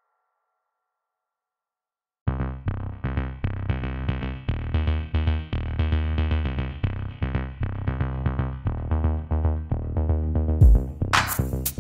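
Silence for about two seconds, then electronic background music: a fast, pulsing synthesizer pattern over a drum-machine beat. Sharp, bright percussion hits come in near the end.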